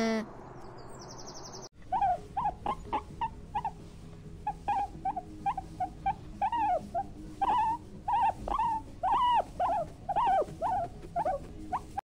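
Wild boar piglets squealing: a dense string of short, high squeaks that bend up and down, several a second, starting about two seconds in. A brief pitched call comes at the very start.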